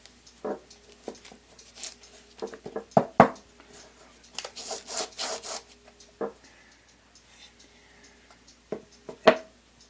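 Wooden pieces handled on a workbench: scattered knocks and taps as they are set down, the loudest pair about three seconds in, with a stretch of rubbing and scraping shortly after.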